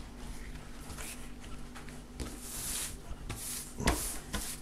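Soft rubbing and brushing of hands and a lump of fresh pasta dough on a countertop as the dough is pressed over dry crumbs to pick them up. There is a light knock near the end.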